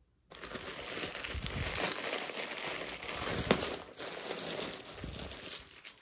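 Clear plastic bag crinkling as hands handle a folded blanket sealed inside it. It starts suddenly just after the start, has one sharp crackle midway, and dies away near the end.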